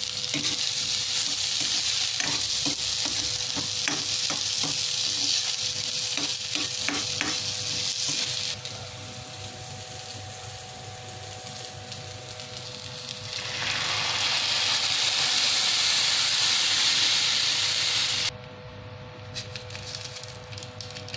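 Chopped onions, garlic and green chili sizzling in hot oil in a pan, with a spatula stirring and tapping against it in quick knocks. The sizzle drops suddenly about a third of the way in, returns loud for several seconds, and cuts off sharply near the end, leaving a few faint clicks.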